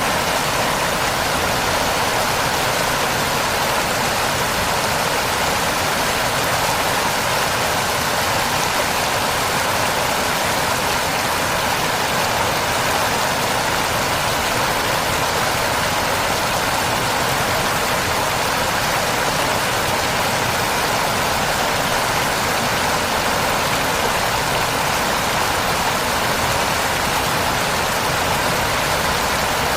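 Big waterfall: water pouring and crashing in a steady, unbroken rush.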